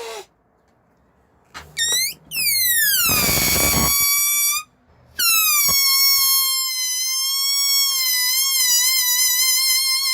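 Air escaping from a rubber balloon through its stretched neck, squealing. A couple of short squeaks, then a squeal that slides down in pitch over a rush of air, and after a brief break a long wavering squeal held at one pitch.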